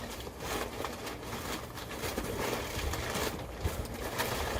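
Crinkling newspaper packing and cardboard being handled, with a few light knocks, as a punch bowl is worked back into its box.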